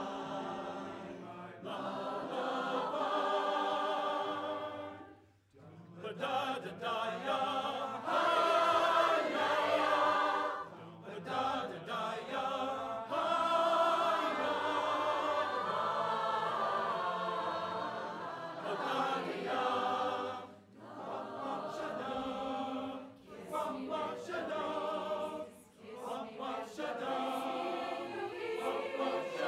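Large mixed choir singing in full harmony, in phrases broken by short pauses several times.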